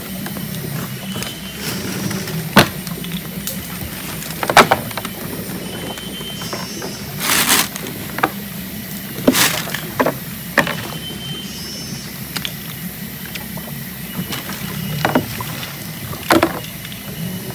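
A cast net being handled and thrown from a small boat: several sharp knocks and clacks as the weighted net is gathered and swung, over a steady low hum.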